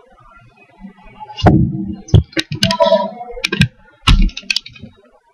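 A cluster of sharp clicks and knocks from a computer keyboard and mouse close to the microphone, starting about a second and a half in and lasting about three seconds, some with a low thud.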